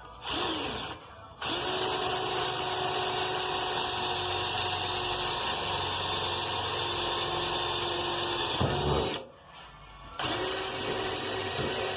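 An electric drill boring into a wooden handle. It gives a short blip, then a long steady run of about seven seconds, then a shorter run of about two seconds, and its motor pitch drops as it spins down after each run.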